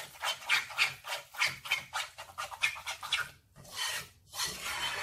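Stirring a thick flour-and-oil mixture in a pot: a rhythmic scraping of about four strokes a second, breaking off briefly a little past three seconds, then a few slower strokes.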